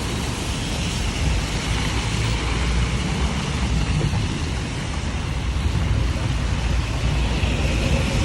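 Storm wind buffeting the microphone with a low, gusting rumble, over a steady hiss of heavy tropical-storm rain.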